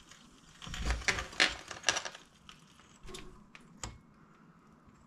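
Irregular clicks and clinks of metal hand tools and brake hardware being handled: a quick cluster of them about a second in, then a few single sharp clicks around three to four seconds.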